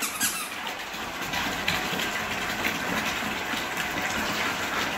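A steady rushing noise, with one brief tap about a quarter second in.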